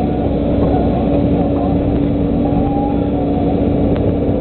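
Volvo EC140 LC excavator's diesel engine running steadily under working load, with a steady hum over it, while the boom swings and the bucket dumps peat; a faint knock near the end.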